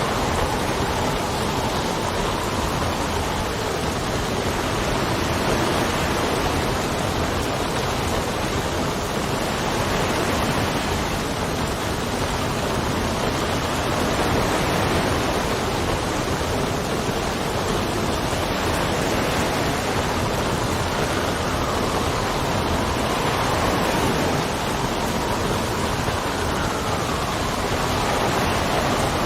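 Steady rain with wind, a dense even hiss. A faint whistle of wind slides down and back up in pitch near the start and again in the last few seconds.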